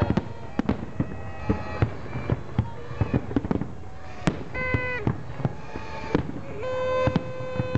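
Fireworks going off in an irregular rapid string of sharp bangs and crackles. Held pitched tones lasting about a second rise over the bangs a little past the middle and again near the end.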